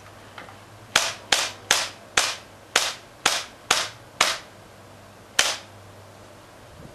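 A string of nine sharp, gunshot-like bangs, about two a second, with a gap of just over a second before the last.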